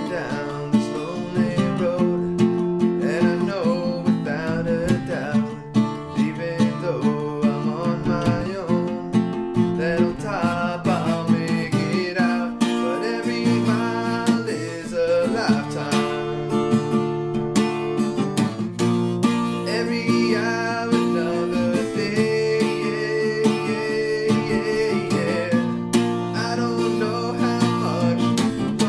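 A man singing to his own strummed acoustic guitar, with steady rhythmic strumming throughout and the voice coming in and out between phrases.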